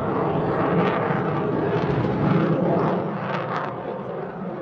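Aircraft engine noise, a dense steady drone with a few brief swells.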